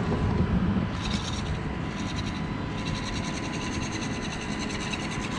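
Axial SCX24 1/24-scale RC rock crawler's small electric motor and gears whirring in pulses as it crawls, over a steady low rumble.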